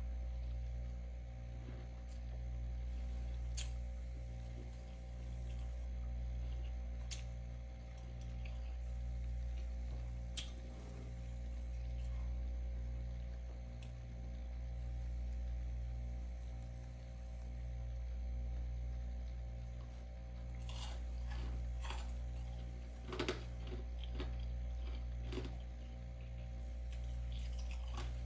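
Steady low electrical hum with a few faint steady tones above it, swelling and fading slowly every two seconds or so. A cluster of light crackles and scrapes comes about three quarters of the way through.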